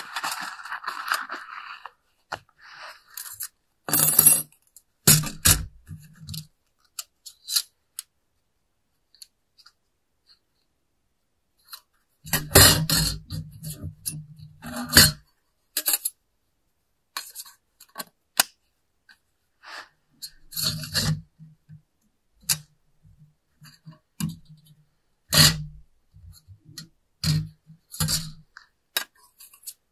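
Thin steel plates of a flat-pack hobo stove clinking, scraping and knocking on a wooden table as they are taken out and handled, with some fabric rustling from the bag. The sounds come as scattered clicks and short bursts of handling, with a longer spell of it near the middle.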